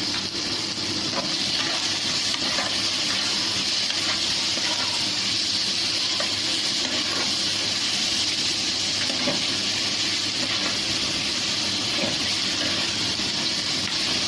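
Chopped onion and tomato frying in hot oil in a pan, a steady sizzle.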